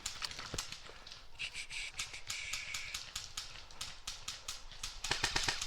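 Airsoft guns popping here and there, then a rapid full-auto burst from an airsoft electric gun starting near the end, about a dozen evenly spaced snaps a second.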